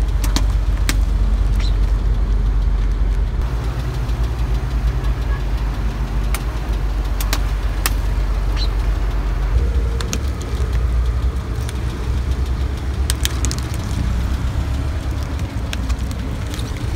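A car engine running steadily at idle as the tyre creeps forward, with scattered sharp clicks and cracks from plastic clogs and a plastic bottle being crushed under the tyre.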